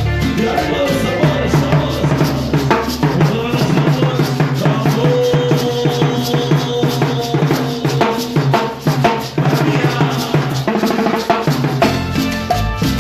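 Live Latin dance-band music with the drum kit to the fore: bass drum, snare and rimshot strokes over a steady bass line. The music dips briefly twice, a little past the middle.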